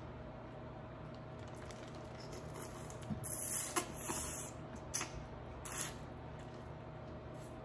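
A rustle lasting about a second, about three seconds in, with a few sharp clicks and two shorter rustles after it, over a steady low hum.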